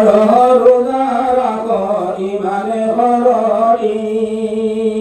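A man singing a devotional ghazal solo into a microphone, his melody bending up and down, then settling into one long held note about four seconds in.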